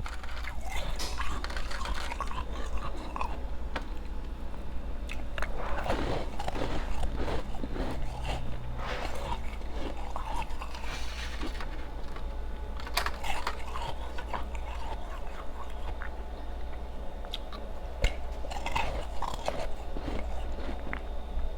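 Ice being bitten and chewed close to the microphone: bouts of crisp crunching every few seconds, with quieter grinding chews between them.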